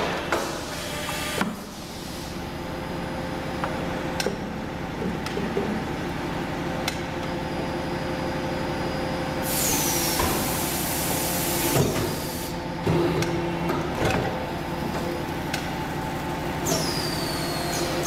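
Rotor aluminium die casting machine running: a steady hum with scattered metal clanks and knocks, and a loud hiss of air for about two seconds near the middle, with a couple of short falling whistles.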